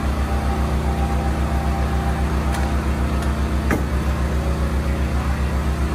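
An engine running steadily at idle, a deep hum with an even throb. Two short sharp clicks about a second apart come near the middle.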